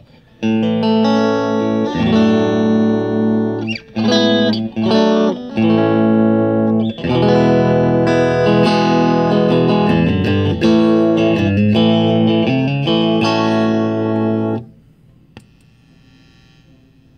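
Strat-style electric guitar on its bridge and middle pickups played through a Stagg 20 GA combo amp: sustained chords changing every second or two, with a few short breaks, stopping about fifteen seconds in and leaving only faint background noise.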